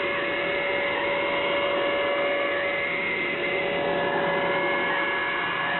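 Shortwave receiver static on 4724 kHz upper sideband: a steady hiss with several steady whistling tones and a faint wavering one.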